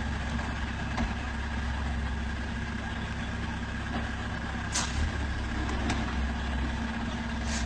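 Heavy tanker truck's engine running steadily at low revs as it inches round a tight turn, with a couple of short hisses, one about five seconds in and one near the end.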